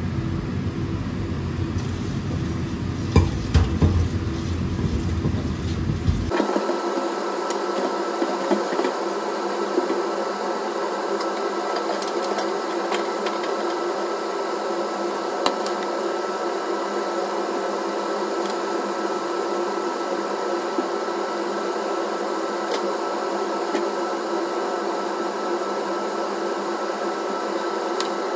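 A kitchen appliance motor runs steadily, with a few clatters of cookware in the first seconds. About six seconds in the sound changes abruptly to a thinner steady hum with a faint high whine.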